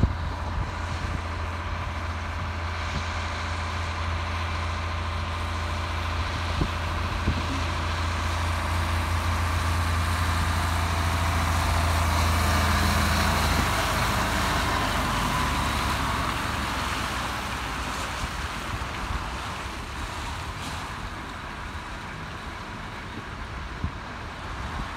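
Heavy truck passing on a wet road: a low diesel drone with tyre-spray hiss that swells to a peak about halfway through, then fades away.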